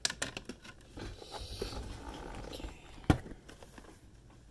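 Handling noise as the camera is moved about: rustling and scraping with a few clicks at the start and a sharp knock about three seconds in.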